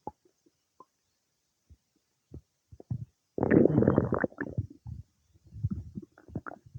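A person's stomach gurgling while digesting food: scattered small pops and gurgles, one loud rumble lasting about a second starting about three and a half seconds in, then more gurgling near the end.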